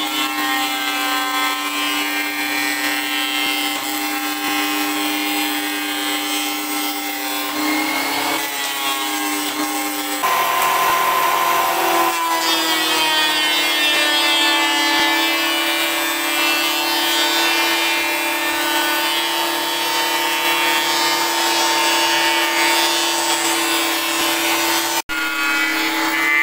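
Benchtop thickness planer running loud and steady, its cutterhead planing wooden boards, with a high motor whine. The whine dips in pitch a couple of times as the cut loads it and grows louder about ten seconds in.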